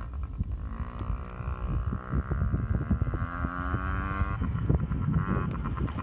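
Small dirt bike's engine running under throttle, its note rising slowly as it pulls away, then fading about four and a half seconds in. Wind buffets the microphone throughout.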